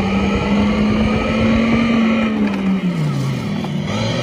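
Simulated engine sound from the Segway Ninebot GoKart Pro's built-in speaker, following the throttle. It holds a high pitch, falls away about three seconds in, then climbs again near the end.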